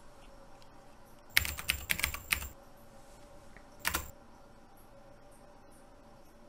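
Computer keyboard typing: a quick run of about six keystrokes, then a single key press about a second and a half later, like a command being entered.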